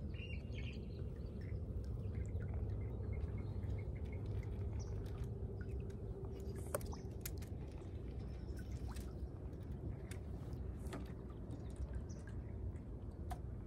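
Water lapping and dripping around a floating dock over a steady low wind rumble, with scattered faint ticks.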